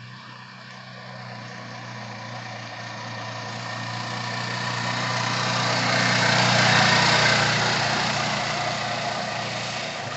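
A motor vehicle passes by: its noise swells to the loudest point about seven seconds in and then fades, over a steady low engine hum.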